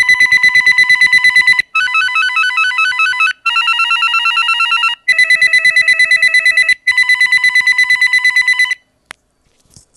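VTech CS6124-11 cordless handset's piezo speaker playing its ringtones one after another: five short electronic ring patterns of about a second and a half each, some a fast warbling trill on one pitch and two a quick stepping melody. A faint click follows near the end. The owner takes the slow ringer patterns for a sign of the handset's older software.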